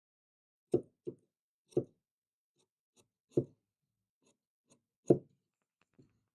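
Tailor's tools knocking on the cutting table while pattern cutting: about six short, dull knocks at uneven intervals, the loudest about five seconds in.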